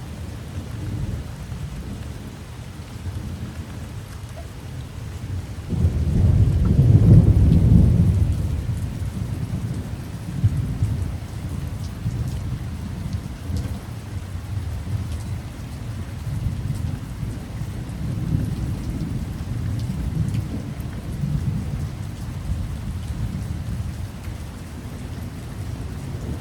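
Heavy rain falling steadily in a thunderstorm, with a rumble of thunder about six seconds in that swells and fades away over a few seconds.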